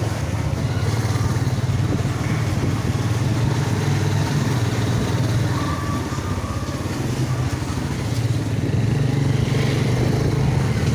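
Motorcycle engine running steadily under way, heard close from the rider's seat, easing slightly about halfway through before picking up again.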